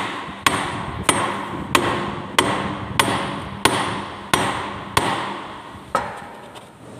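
A hammer striking a steel trimming die nine times at an even pace of about one and a half blows a second, each a sharp metallic hit that rings on briefly. The blows drive the die through a test sheet of paper to check the setting of its cutting edges.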